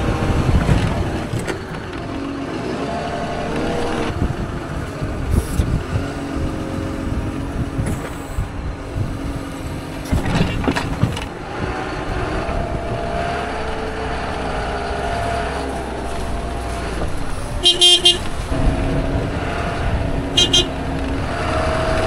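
A wheel loader's diesel engine runs and revs as the machine drives and works its hydraulic loader arms, its pitch rising and falling. Two short, high-pitched beeps sound near the end.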